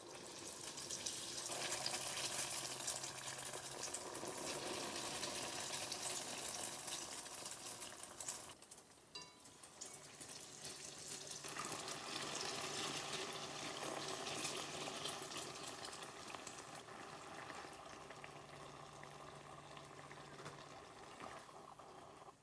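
Dough frying in hot oil: a dense crackling sizzle that drops away briefly about eight seconds in, then picks up again and slowly fades toward the end.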